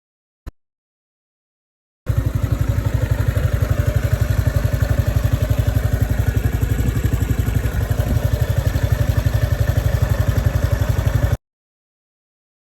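Honda Super Cub JA07's small air-cooled single-cylinder four-stroke engine idling with an even, rapid beat. It starts and cuts off abruptly, with a brief click about half a second in, before it starts.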